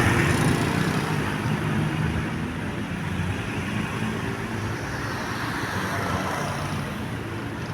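Bus engine running amid road traffic noise, loudest as it sets in and fading slowly.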